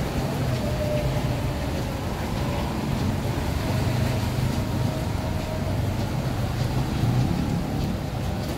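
Steady rumble of city traffic on a wet road, with a faint wavering whine from an engine.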